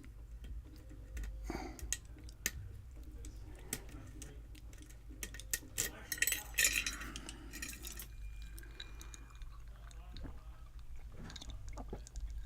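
Small metallic clicks and scrapes of a lock pick working the pins of a Schlage pin-tumbler lock held under tension, scattered irregularly with a denser run of clicking and scraping about halfway through. A steady low hum lies beneath.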